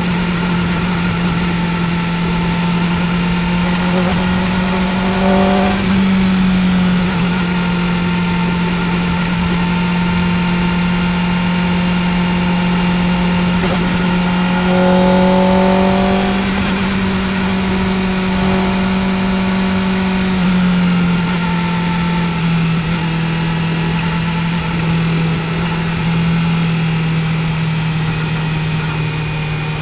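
Kawasaki Ninja ZX-4R's inline-four engine running steadily under way. Its pitch rises twice, about four to six seconds in and around fifteen seconds, and dips slightly a little past twenty seconds.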